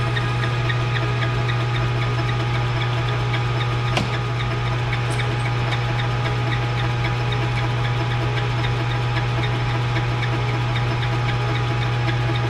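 Metal lathe running steadily with a strong low hum and a light regular ticking about three times a second. A single sharp click about four seconds in.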